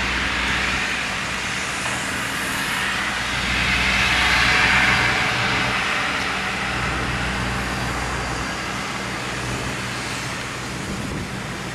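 Golf cart running: a steady motor hum under a broad rushing noise that swells about four to five seconds in, then eases off.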